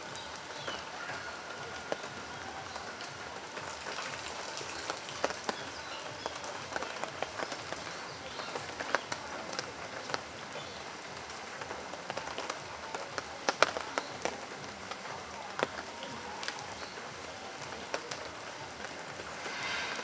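Steady outdoor background hiss with many scattered sharp ticks and taps through it, the loudest a little past halfway.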